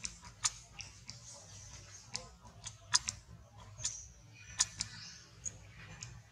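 Dry leaf litter crackling in scattered, irregular sharp clicks over a faint steady low hum.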